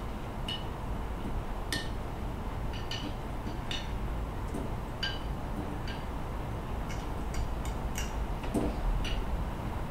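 Glass fluorescent tubes clinking lightly against each other and the plasma ball's glass globe as they are handled: about a dozen small, irregularly spaced clinks with a brief ring.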